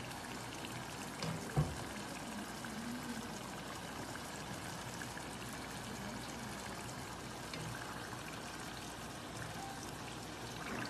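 Frozen potato smiles deep-frying in hot oil in a kadai: a steady sizzle and bubbling, the snacks nearly done. A single dull thump about one and a half seconds in.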